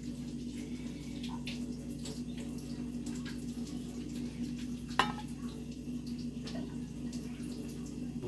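A bowl being handled on a table: scattered light clicks and one sharp clink about five seconds in, over a steady low hum.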